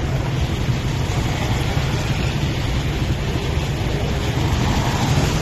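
Steady rushing noise of a flooded river running high and fast, with wind buffeting the microphone in a low, unsteady rumble.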